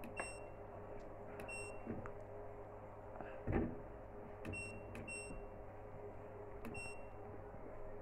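Washing machine control panel beeping in short, high single beeps as its program dial is turned, about six beeps with a faint click each, over a low steady hum. A low thump about three and a half seconds in.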